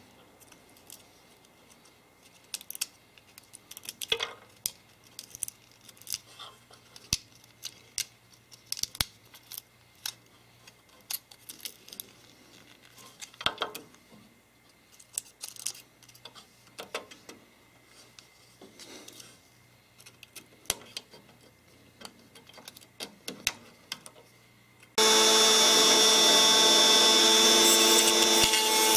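Small scrapes and clicks as walnut meat and shell bits are picked out of a walnut shell with a pointed hand tool. About 25 seconds in, a Dremel rotary tool switches on and runs with a steady high whine while it smooths the inside of the walnut shell.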